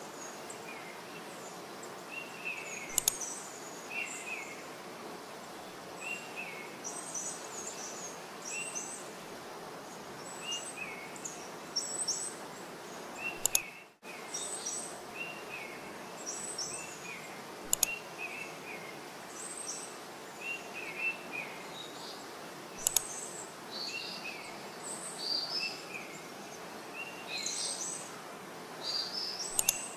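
Small birds chirping over a steady background hiss, short calls repeating every second or so. A few sharp clicks stand out every several seconds, and the sound cuts out for an instant about halfway through.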